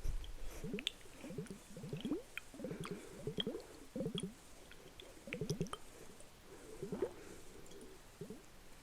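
A series of short, soft wet squishing sounds, about ten of them at irregular intervals, with a few faint clicks.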